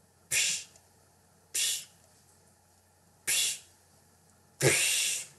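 Four short swishing noises, about a second and a half apart, the last one longer: a cartoon sound effect of a knife chopping pepperoni.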